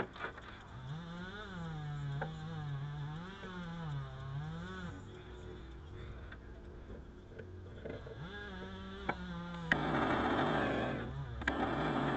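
A man humming a wavering tune to himself, in two stretches, with two bursts of steady hissing about ten seconds in and again near the end.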